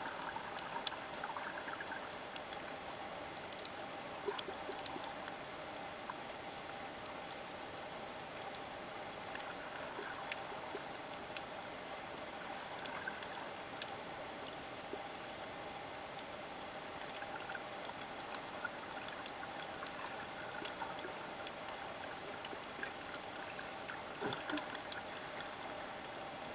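Underwater sound picked up by a submerged camera: a steady watery hiss with a faint hum, scattered with many small crackling clicks.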